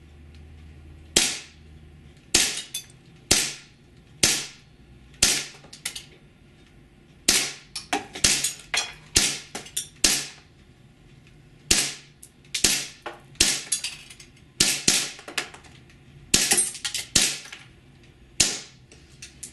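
WE Baby Hi-Capa 3.8 gas blowback airsoft pistol firing seventeen shots of aluminum BBs, each a sharp report with a quick decay. The shots come at an uneven pace, in short rapid runs with gaps of a second or so between them.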